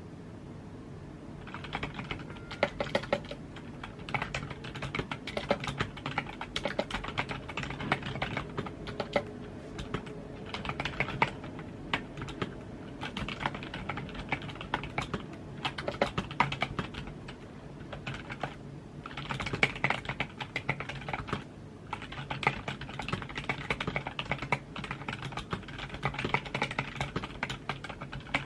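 Typing on a computer keyboard: a fast, irregular run of key clicks, pausing briefly at the start and twice more past the middle.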